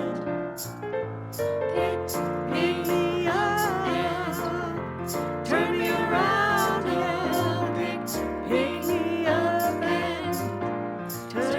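Music: a gospel-style song with a sung melody over held keyboard chords and a light, steady beat.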